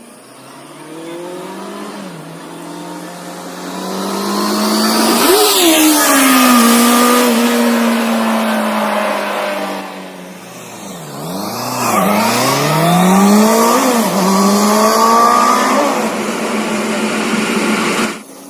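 Honda CBR650F's inline-four engine on its stock exhaust, rising as the bike approaches, then passing by with the pitch dropping about five seconds in. Midway there are a couple of quick revs, then the engine climbs again before the sound cuts off suddenly near the end.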